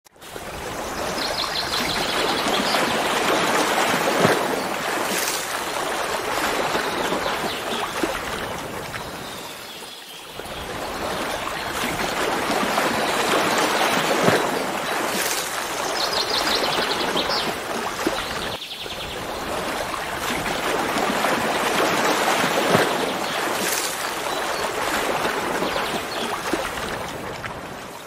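Waterfall water rushing steadily, with the level dipping briefly twice. High bird chirps come in twice: a few seconds in and again about halfway through.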